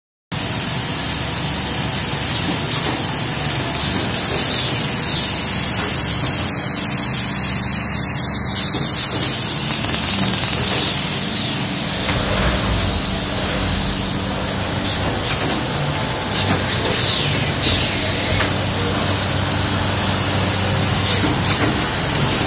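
QFM 460B automatic case-making machine for lever arch files running: a steady mechanical noise with a hiss and brief high squeaks now and then. A low hum joins about halfway through.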